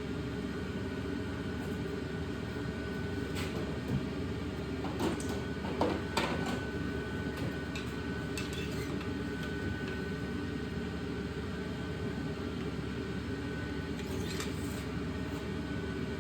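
Steady background hum with a few light metallic clicks and scrapes, typical of a camshaft being slid by hand into an LS V8 engine block.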